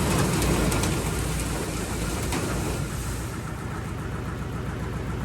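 Feed auger running with feed rattling and hissing down into a bag clamped to its spout, over a steady low motor hum. The rain-like rush of feed thins out about three seconds in, on what is probably the last bag, one that may not fill.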